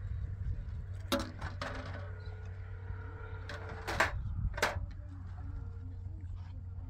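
Ceramic plates and cups clinking and knocking against each other as dishes are washed and stacked by hand, with several sharp clinks, the loudest about four seconds in, over a steady low rumble.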